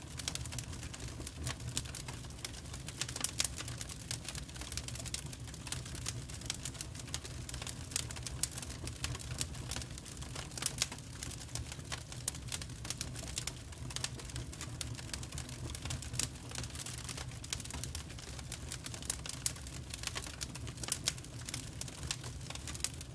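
Burning firewood crackling: irregular sharp pops and snaps, several a second, over a steady low hum.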